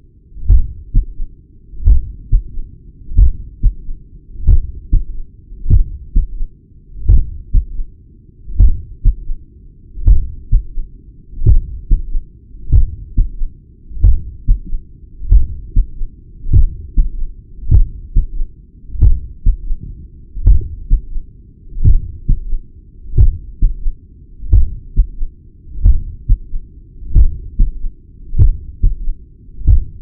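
Regular heartbeat heard through a digital stethoscope at the apex of the chest: each cycle a first and second heart sound followed by a softer third heart sound (S3), with a heart murmur.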